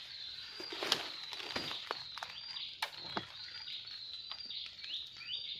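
Footsteps pushing through forest undergrowth, with sharp cracks and rustles of stems and twigs under boots. Behind them a steady high animal call keeps sliding down in pitch in short steps.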